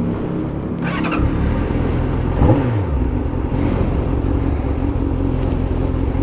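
Honda CBR600F's inline-four engine with an Akrapovic exhaust running steadily under way, with a brief rise and fall in revs about two and a half seconds in.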